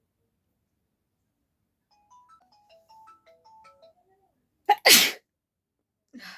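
A person sneezes once, hard and suddenly, about five seconds in: a short catch of breath, then a loud explosive burst. A fainter breathy noise follows about a second later. A short run of soft tinkling notes comes before the sneeze.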